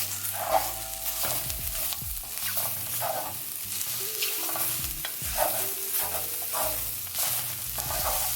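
Sliced vegetables sizzling in a hot frying pan while a utensil stirs and flips them, scraping across the pan about once or twice a second. It is a dry sauté with no water added, the vegetables starting to char on the pan bottom.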